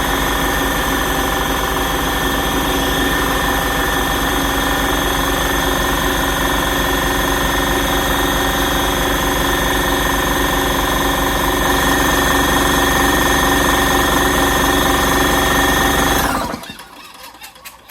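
Portable electric air compressor running steadily, powered through a 50-foot 12-gauge extension cord: a motor-and-pump hum with a whine. It shuts off abruptly about sixteen seconds in.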